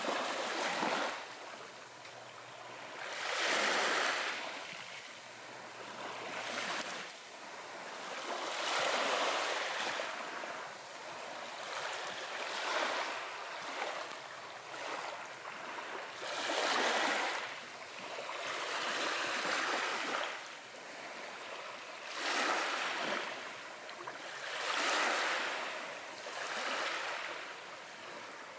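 Ocean waves washing ashore, a hissing surge that swells and falls every few seconds.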